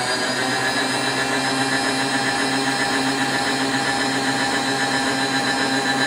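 Milling machine table power feed motor whining steadily at a constant speed as it traverses the table, sweeping a dial test indicator along a clamped block to check its alignment.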